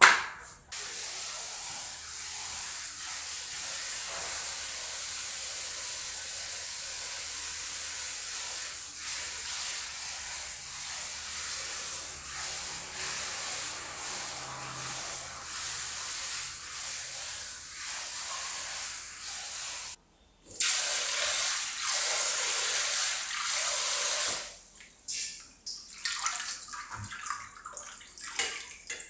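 Tap water running in a steady stream. It cuts off briefly about twenty seconds in, comes back louder for a few seconds, then gives way to uneven splashing.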